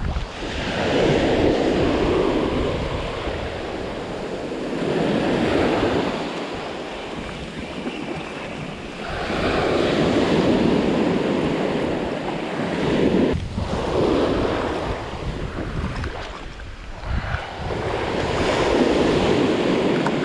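Waves breaking and washing up on a beach, swelling and fading about every four seconds, with wind buffeting the microphone.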